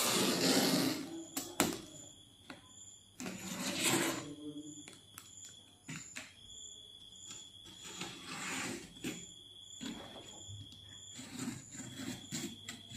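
Hands rubbing and scraping along a cardboard shipping box and its packing tape, in a few short swishes with quieter handling between, over a faint high-pitched electronic beeping and whine that comes and goes.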